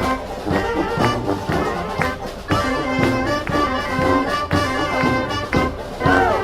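Street marching band playing: brass horns such as trumpets and trombones sound over a steady drum beat of about two hits a second.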